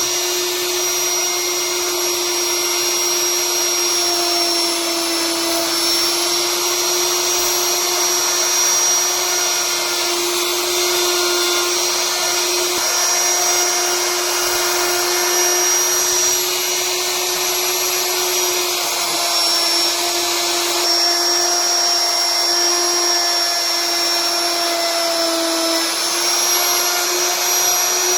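An electric power tool's motor running at high speed, a continuous whine whose pitch dips slightly now and then as it takes load.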